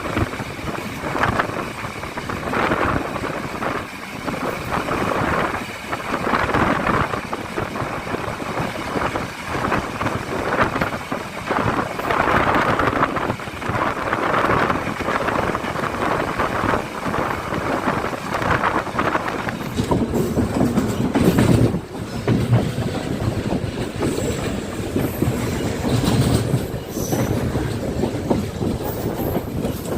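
Yal Devi express train running along the line, wheels clattering over the rail joints under a steady rumble, which grows deeper and heavier about twenty seconds in.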